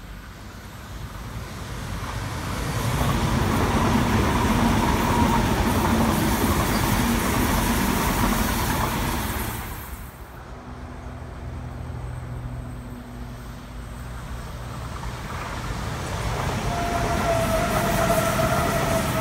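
A double-deck electric suburban train passes through the station, building to a steady rumble with a faint hum. After a sudden cut, a second double-deck electric train runs past close by, and a steady motor whine comes in near the end.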